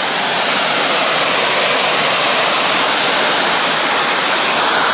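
Superheated steam jet of a volcanic fumarole venting with a loud, steady hiss, heard up close.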